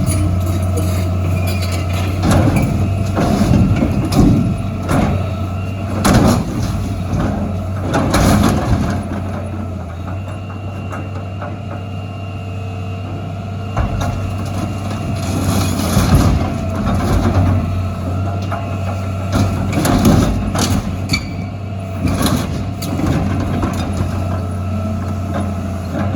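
Heavy diesel engine of an excavator running steadily, with repeated loud metal crunches and clanks as steel dumpsters are crushed and struck, about every two seconds at first, then more spread out.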